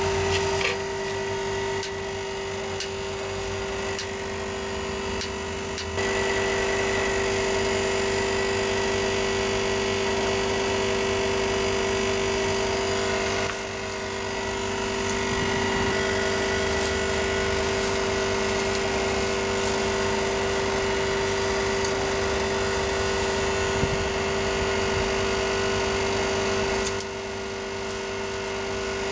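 A steady mechanical hum of constant pitch, like a small motor or fan running, over a noisy background. Its loudness drops and returns a few times.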